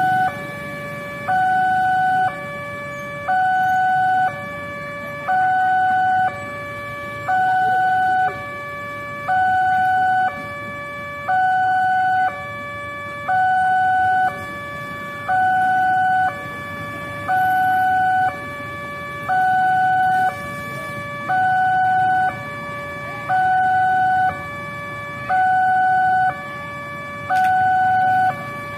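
Railway level-crossing warning alarm sounding an electronic two-tone signal, a higher and a lower tone alternating about once a second, the higher one louder, warning that a train is approaching and the crossing is closed.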